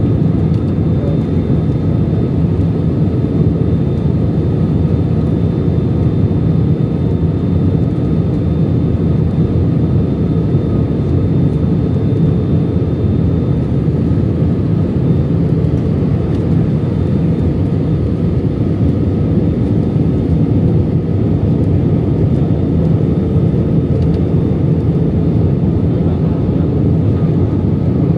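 Steady engine and airflow noise inside the cabin of an Airbus A319-100 airliner on descent toward landing, an even low-pitched rumble that does not change.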